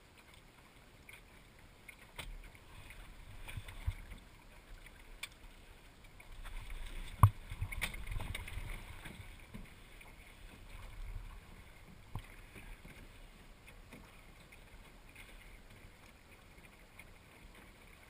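A small sailing dinghy under way: faint water swishing along the hull, swelling for a few seconds in the middle, with a few sharp knocks from the boat's fittings, the loudest about seven seconds in.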